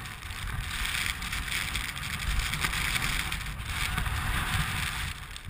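Wind buffeting a helmet-mounted GoPro's microphone: a steady rushing with a heavy low rumble.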